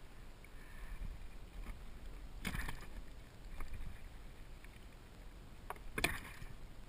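Water lapping against a plastic kayak hull with a low wind rumble, broken by a few sharp knocks on the kayak, the loudest about six seconds in.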